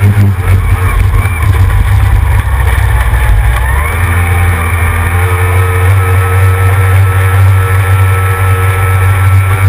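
Two-stroke racing outboard engine of a C Stock hydroplane running steadily at speed, rising a little in pitch about four seconds in and then holding.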